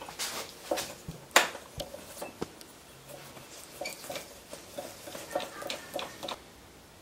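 Scattered light knocks, taps and clicks of wooden jig parts being handled and adjusted on a table saw sled, with one sharper knock about a second and a half in.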